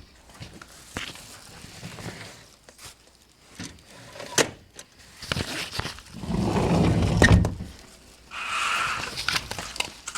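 A patio screen door and a glass sliding door being slid shut, softer knocks and rustles first, then a long rumble of the door rolling in its track ending in a sharp knock as it closes. Near the end comes a short scraping sound about a second long.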